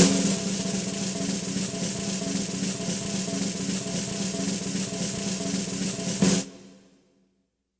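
Acoustic snare drum roll: a steady, dense roll that opens on a sharp accented stroke and closes about six seconds in with an accented final hit that rings out and fades.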